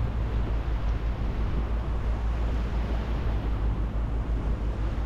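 Steady low rumble of a boat under way, with wind noise on the microphone.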